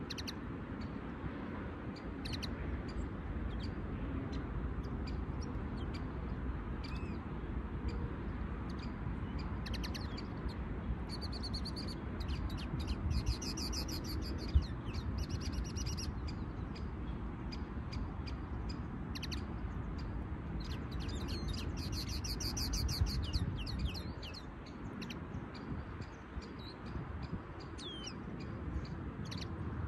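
Caged songbirds giving scattered short high chirps, with a bird twice breaking into several seconds of fast twittering song, once about a third of the way in and again past two-thirds. A steady low rumble runs underneath.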